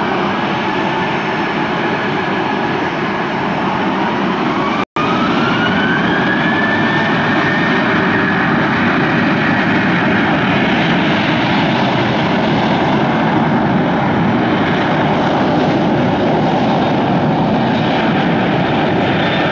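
Skymark Boeing 737-800's twin CFM56 turbofan engines running loud and steady for takeoff. The whine climbs in pitch over a few seconds as the engines spool up to takeoff thrust, then holds. The sound cuts out for an instant about five seconds in.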